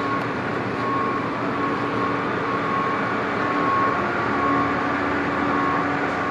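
Steady engine noise with a constant droning tone running under it.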